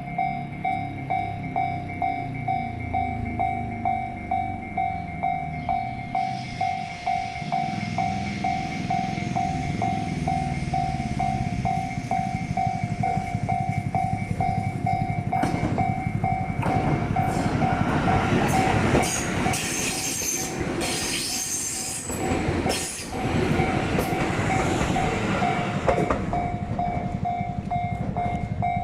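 Railway level-crossing warning bell ringing steadily at about two dings a second while a Tobu 350 series limited express train passes over the crossing. The train noise builds about a quarter of the way in, and from about halfway the wheels clatter over rail joints.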